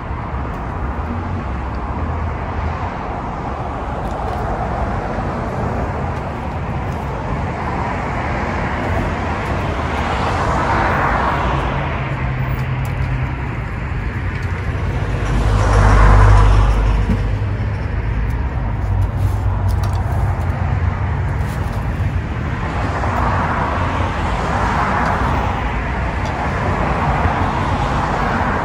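Road traffic with cars passing by one after another, each swelling up and fading; the loudest pass, about halfway through, has a low rumble.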